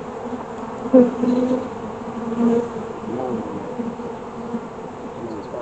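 Honeybees buzzing around an opened hive, with single bees passing close in a hum that rises and falls in pitch. The buzz swells about a second in and again around two and a half seconds.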